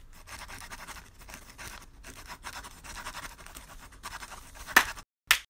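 A pen scratching across paper in quick drawing strokes with short pauses between them, ending with two sharper, louder strokes.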